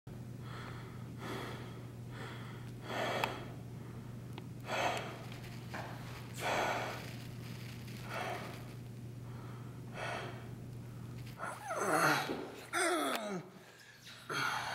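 A person breathing heavily, breaths or gasps recurring every second or two, over a steady low hum. About twelve seconds in comes a louder sound that slides down in pitch.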